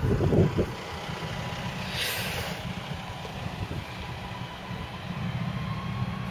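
Steady low engine rumble from traffic on the airfield, from an airport service truck and a taxiing jet airliner. There are a few low thumps at the start and a short hiss about two seconds in.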